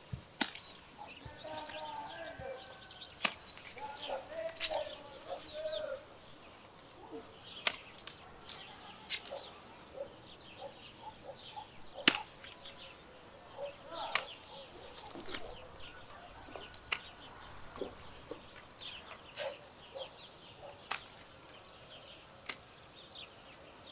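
Hand pruning shears snipping thin peach branches: a dozen or so sharp, crisp cuts, irregularly spaced a second or a few seconds apart.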